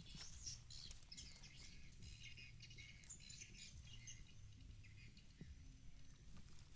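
Faint bird chirping: many short, high twittering notes scattered throughout, over a low background rumble.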